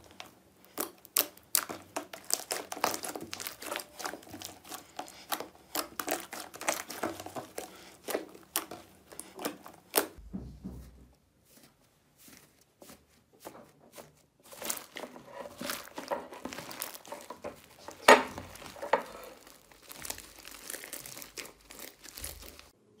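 Hands squishing, poking and stretching slime, making a dense run of small sticky clicks and crackles. The crackling eases off for a few seconds near the middle, then picks up again as the slime is pressed and pulled.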